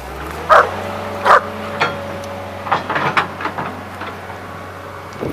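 A dog barking: two loud barks about half a second and a second and a half in, then a few weaker ones around three seconds in, over the steady running of a John Deere 690E excavator's diesel engine.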